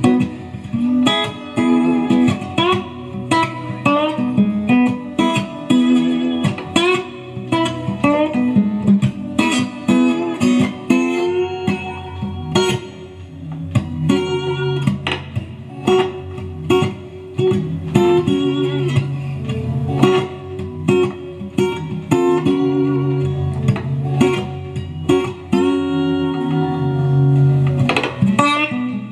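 Guitar-led music with plucked notes, played through a DIY LM3886 bi-amplifier into a bookshelf woofer and a separate tweeter as a listening test of the amplifier's balanced input. It plays loud and clear, with no hum.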